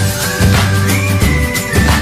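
Upbeat electronic theme music with a steady drum beat, sustained bass notes and a held synth melody: a channel's intro jingle.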